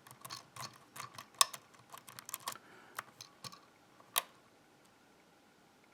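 Irregular small metallic clicks and taps of a hook pick working the pins inside a ZI IKON cylinder lock, several a second, dying away about four seconds in.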